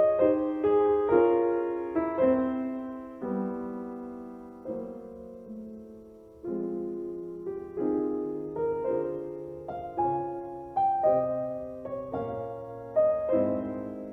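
Solo piano music: notes and chords struck about once or twice a second and left to ring and fade. The music thins out around five to six seconds in, then a new phrase starts about six and a half seconds in.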